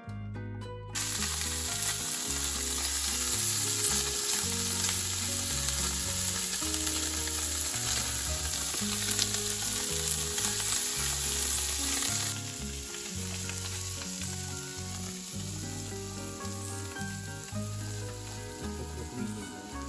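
Small whole fish frying on a hot iron griddle over a wood fire, a steady sizzling hiss. It starts about a second in and drops to a softer sizzle about twelve seconds in.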